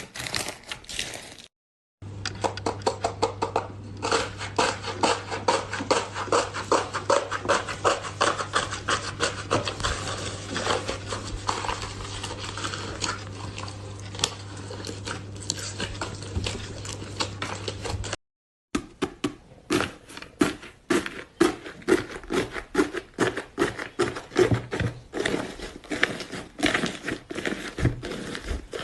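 Iceberg slime being pressed and squeezed by hand: rapid, dense crunching and crackling as its hardened crust breaks up. It comes in three separate clips split by brief silences, with a low steady hum under the middle one.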